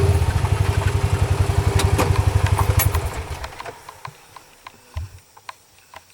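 A vehicle engine idling with a steady low throb, which dies away about three seconds in, leaving only a few faint scattered clicks.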